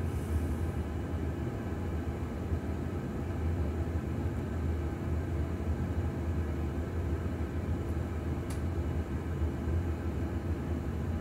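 Steady low rumble and hum of a Boeing 737-800 flight simulator's reproduced jet-engine sound with the aircraft taxiing at idle thrust, and a faint click about eight and a half seconds in.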